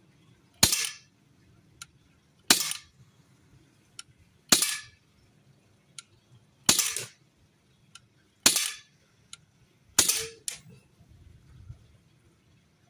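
Huntsman FAL CO2 BB rifle firing six single shots, each a sharp pop, about one every two seconds, with faint clicks in between. The shooter takes the weak shots to mean the CO2 is running low.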